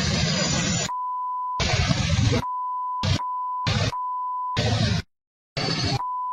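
Censor bleeps: a steady 1 kHz beep tone cut in four or five times, each under a second, alternating with stretches of loud, noisy clip audio. A short dropout to silence comes about five seconds in.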